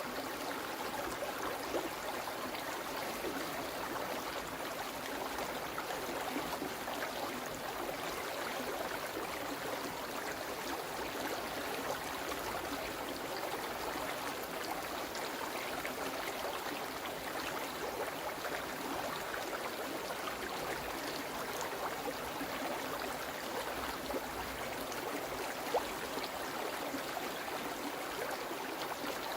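A small woodland stream running over stones, a steady babble and gurgle without a break.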